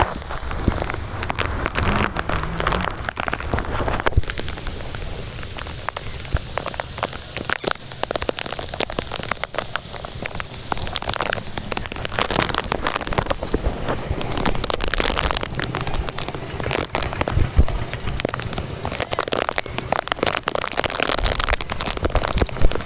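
Heavy rain falling: a dense, steady hiss of drops striking hard surfaces, full of sharp ticks.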